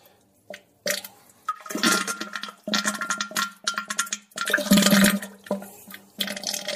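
Rushing, flush-like water noise in a string of short, choppy bursts over a steady low hum.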